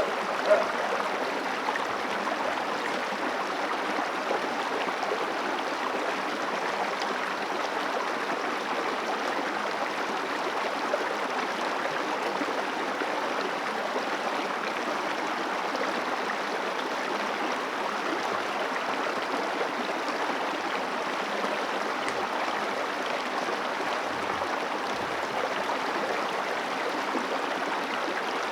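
Steady flowing water of a mountain river, the upper Guadalquivir, an even unbroken rush. One brief sharp sound stands out about half a second in.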